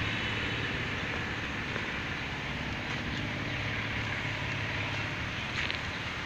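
Steady road traffic noise: a low engine hum under a continuous hiss of vehicles, with a few faint clicks.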